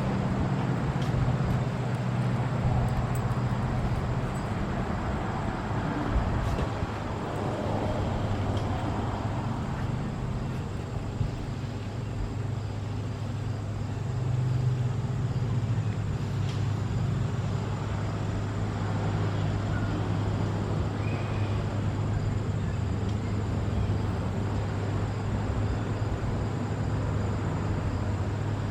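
Steady low hum of a running engine over outdoor background noise; no siren is sounding.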